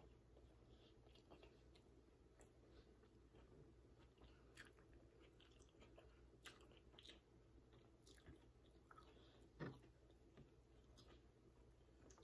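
Faint close-up mouth sounds of chewing a chicken taco: scattered soft clicks and wet smacks, with one louder brief sound about three-quarters of the way in.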